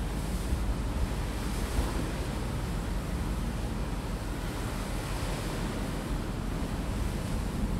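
Wind and rushing sea water heard from a passenger ferry under way: a steady noise with a low rumble underneath, swelling slightly now and then, with wind on the microphone.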